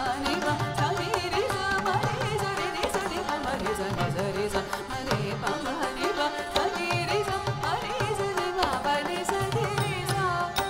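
Live Carnatic music for Bharatanatyam: mridangam strokes under a melodic line that slides and bends between notes, over a steady drone, with some singing.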